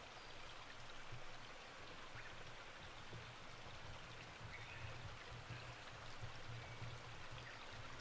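Steady rush of running water.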